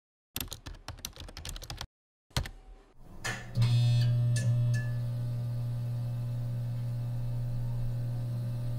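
Computer keyboard typing: a quick run of keystrokes for about a second and a half, then one more key press. After that a steady low hum sets in and runs on, with a few short high beeps a second or so after it starts.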